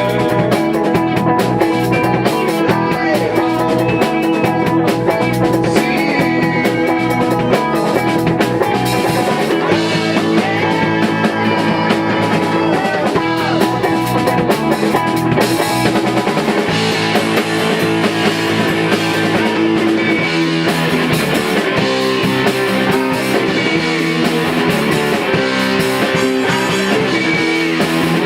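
A rock band playing at rehearsal, guitar over a drum kit, loud and without a break.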